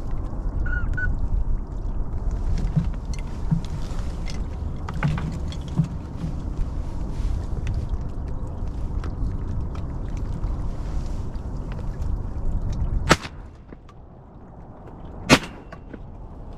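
Two shotgun shots about two seconds apart, each a single sharp crack, coming near the end. Before them a steady low rumbling noise runs underneath.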